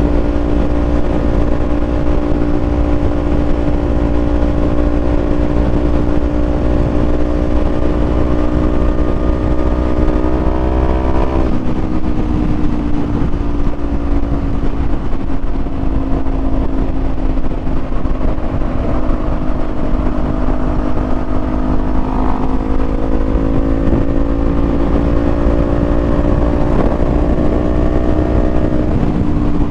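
Kawasaki Z400 parallel-twin engine pulling at cruising speed under the rider. Its pitch climbs slowly for about eleven seconds, then drops at a gear change, holds, and climbs gently again near the end. A low wind rumble sits under it.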